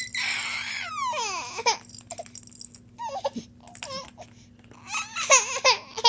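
A baby laughing and babbling: a breathy burst at the start, then a squealing laugh that falls in pitch, short babbles, and another burst of high-pitched laughter about five seconds in.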